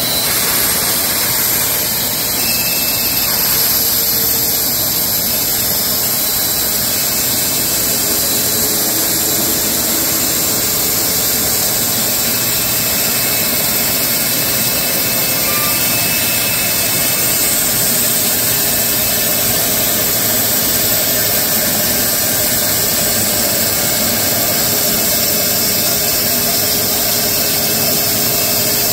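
Wood-Mizer LX250 portable bandsaw mill running steadily under load, its band blade cutting lengthwise through a large horse chestnut log.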